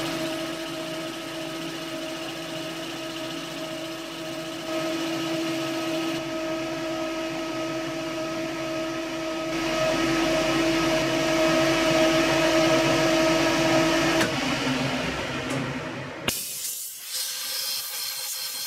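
Metal lathe running with a steady whine while a boring bar bores out an aluminium V-belt pulley's bore to 18 mm. The lathe stops about three-quarters of the way in, and a short hiss-like noise follows near the end.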